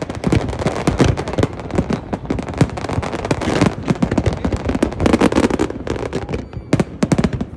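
Fireworks display: a rapid, dense string of overlapping bangs and crackles.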